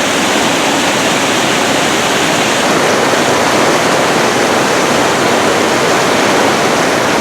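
Rushing river water pouring over rocks near a waterfall, a loud, steady rush with no breaks.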